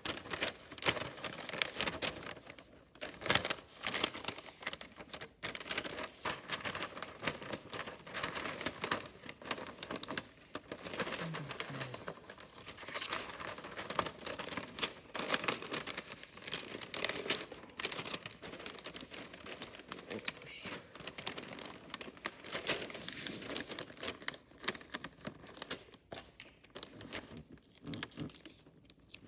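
Wrapping paper crinkling and rustling irregularly as it is folded and handled around a present.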